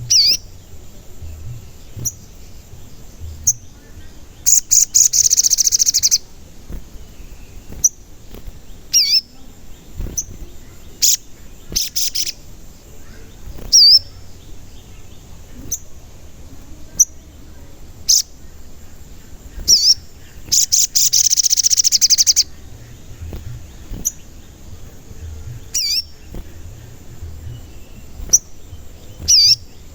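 A sogon bird in full song, giving sharp high 'cuit' whistles that dip and rise again, every second or two, with a few longer rapid high chattering bursts, the longest about 20 seconds in. This is the kind of song used as a lure to provoke other sogon birds to sing.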